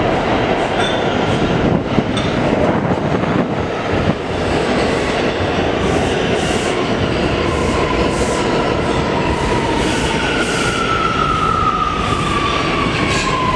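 R179 subway train pulling into the station: a steady rumble of wheels on rail with rhythmic clacks over the rail joints. From about ten seconds in, a high whine slides down in pitch as the train slows.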